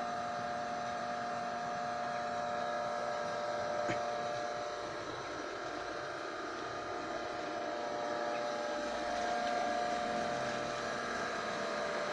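Steady machine hum with two clear steady tones and fainter ones above, and a faint click about four seconds in.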